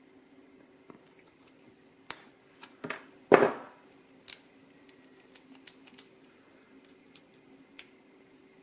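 Small metallic clicks and clinks as a dimple lock, its key and tools are handled, with one louder clatter that rings briefly about three seconds in, over a faint steady hum.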